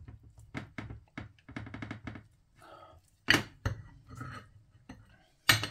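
Metal rotisserie spit being worked through a raw chicken on a plate: scattered clicks and knocks, a quick rattle about two seconds in, and a sharper thunk a little past the middle and again near the end.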